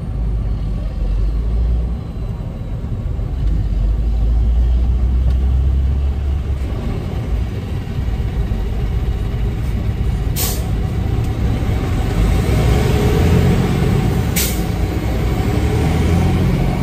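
Semi truck's diesel engine and road noise heard from inside the cab while driving, a steady low rumble that grows heavier in the second half. Two short, sharp hisses cut through, about four seconds apart, past the middle.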